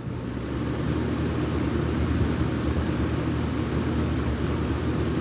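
Lakewood C122 12-inch box fan, with its Fasco motor and plastic blades, speeding up to high over the first second or so and then running steadily: a rush of air over a low motor hum.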